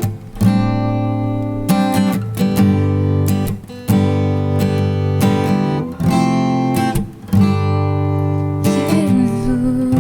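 Instrumental break in a slow worship song: acoustic guitar strumming sustained chords, with the chord changing every few seconds.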